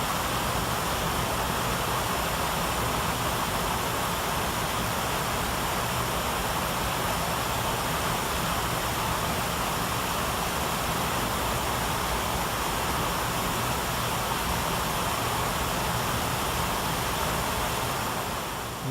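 Steady rushing noise like loud static, with a faint low hum underneath, fading out near the end.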